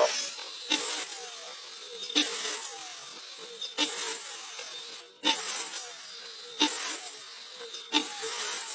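Compound miter saw cutting slices off a small green log, a short burst of cutting about every one and a half seconds.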